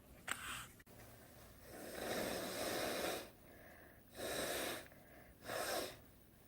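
A woman blowing her nose: a short puff, then one long blow about two seconds in, then two shorter blows.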